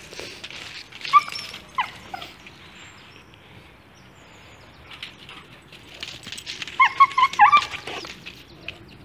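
Dog yelping and whining: a couple of short high yelps and a falling whine a second or two in, then a quick run of about five yelps near the end.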